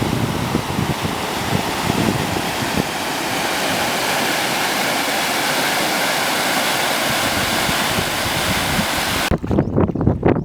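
A steady rushing hiss of moving water, which cuts off suddenly about nine seconds in and gives way to a few irregular low splashes and knocks.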